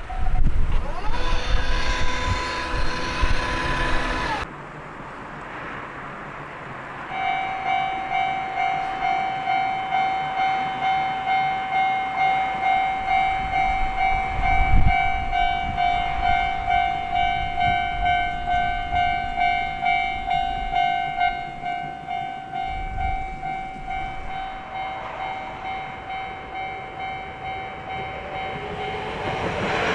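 A train passes sounding its horn, cut off abruptly about four seconds in. A few seconds later a Japanese level-crossing warning alarm starts up, a steady pulsing ring. Near the end the noise of an approaching train rises under it.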